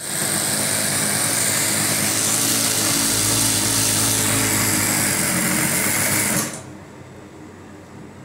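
Industrial single-needle sewing machine running at a steady speed as it stitches a strip of white cloth. It stops suddenly about six and a half seconds in, leaving a faint hum.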